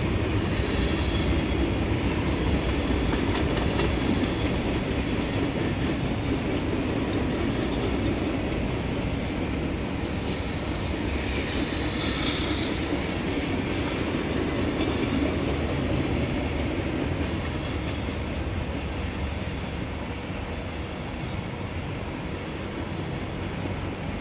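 Freight cars of a passing Norfolk Southern mixed freight train rolling by on the rails with a steady rumble. About halfway through there is a brief high-pitched wheel squeal, and the rumble grows a little quieter near the end.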